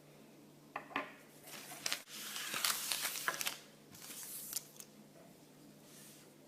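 Packaging wrapper being crinkled and torn open by hand, in a run of crackling, rustling bursts with sharp clicks, loudest around the middle.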